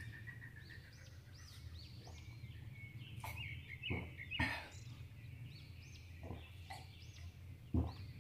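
Birds chirping faintly over a steady low hum, with a few short clicks while a glass of water is drunk and a soft thud near the end.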